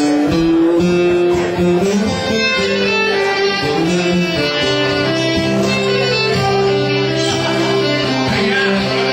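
A live country band playing the instrumental intro of a song: acoustic guitars under a melody of long held notes.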